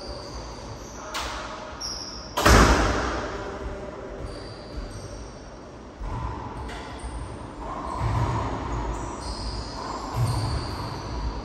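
Racquetball play: the hard rubber ball cracking off racquet and walls, echoing in the enclosed court. There is a sharp hit about a second in and the loudest crack about two and a half seconds in, then softer thuds.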